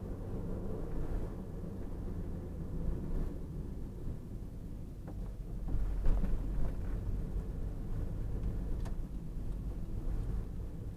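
Steady low road and engine rumble of a car being driven, heard from inside the cabin through a windshield-mounted dashcam.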